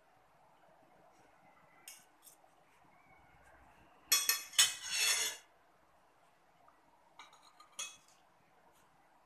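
Metal spoon and fork clinking and scraping against a ceramic plate while serving food onto rice. A few light clinks come about two seconds in, a louder run of scraping clinks lasts about a second midway, and more clinks follow near the end.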